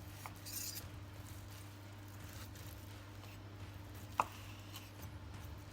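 A Zelite Infinity steak knife with a straight, non-serrated blade edge slicing through cooked steak in long slow draws: faint, soft cutting sounds, with a single sharp tap about four seconds in. A steady low hum runs underneath.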